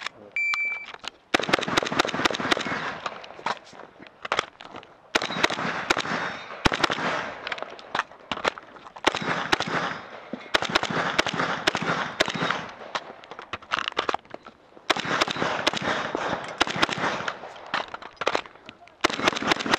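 A shot-timer start beep, then rapid strings of shots from a magazine-fed AK-pattern semi-automatic shotgun, fired in quick runs with brief pauses between them.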